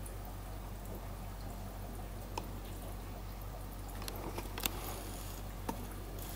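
Aquarium filter running: a steady low hum with faint water trickling and a few sharp drips, the loudest about four and a half seconds in.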